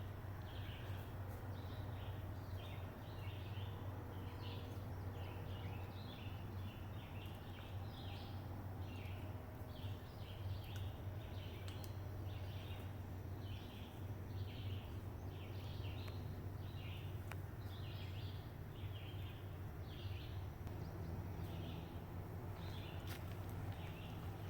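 Woodland ambience: short high chirps repeat about twice a second over a steady low rumble.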